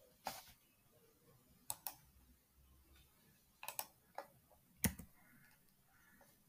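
Faint clicks of a computer mouse and keyboard: about seven short clicks spread out, a couple of them in quick pairs, as a form field is clicked and a letter typed.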